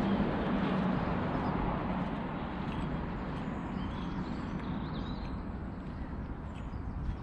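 Outdoor background rumble with small birds chirping faintly now and then. The rumble eases slightly after the first couple of seconds.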